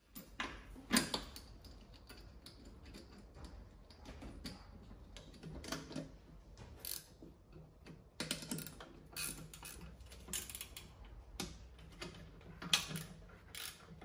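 Irregular metallic clicks and clinks from hand tools and bolts being worked on a riding mower deck's blade spindle housing. The loudest click is about a second in, and short runs of quick clicks come later.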